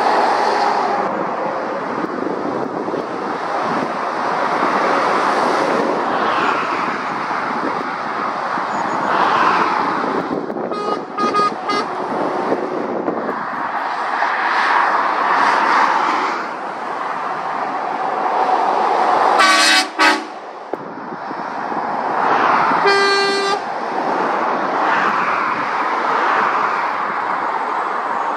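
Lorries and cars passing at speed, their tyre and engine noise swelling and fading as each goes by. A vehicle horn toots briefly three times: once about a third of the way in, loudest about two-thirds in, and once more shortly after.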